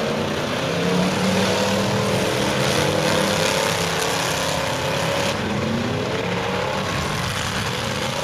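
Several open-header race car engines running together, a dense overlapping engine drone whose pitches rise and fall as the cars rev through the turns.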